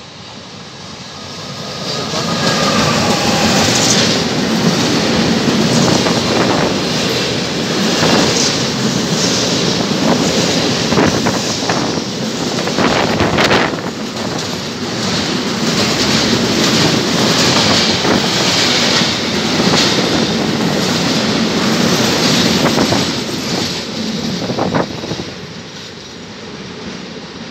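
Bombardier TRAXX E.494 electric locomotive passing through at speed with a long container freight train. A falling whine comes as the locomotive goes by. Then the wagons roll past with a steady rumble and clicks of wheels over rail joints, fading near the end.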